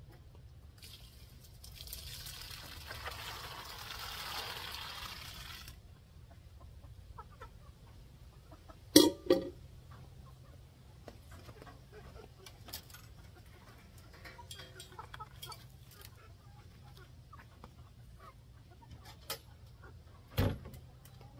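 Cooked chickpeas poured out of a metal pot onto the ground, a rushing pour of a few seconds, then two sharp knocks about nine seconds in as the pot is set down on a stone. Hens cluck softly from the coop throughout, and a low thump comes near the end.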